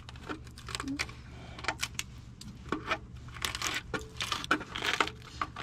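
Close handling noise: scattered small clicks and crackles as a hand picks at the crumbling, rusted-through sheet metal of a pickup's cab corner, over a steady low hum.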